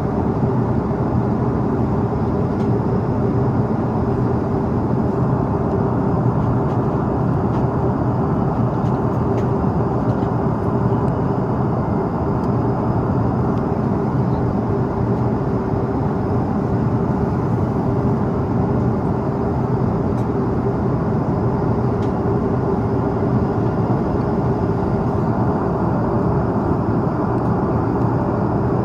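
Airbus A330-300 cabin noise in flight: a steady, even rush of engine and airflow noise with a constant hum running underneath.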